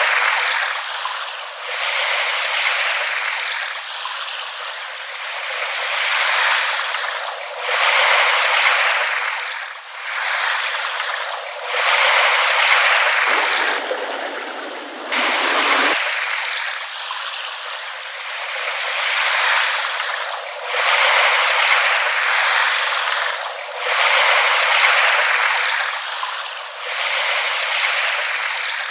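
Small waves lapping at the water's edge, each wash swelling and falling away about every two seconds, with almost no low rumble.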